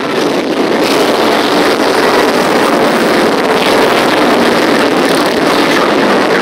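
A procession of motorcycles, mostly cruisers, riding slowly past one after another, their engines running in a loud, steady, overlapping drone.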